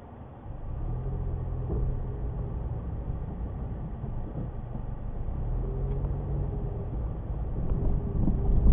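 Car engine and road rumble picked up by a dashcam inside the car as it drives. The sound steps up about half a second in and then grows louder, with a steady low engine hum.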